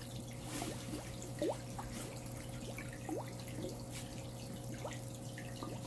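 Water dripping into a pond: single drops plink at irregular intervals, over a low steady hum.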